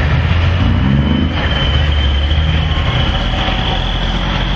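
Heavy truck engine running close by, a steady low rumble. A thin steady high whine comes in about a second and a half in.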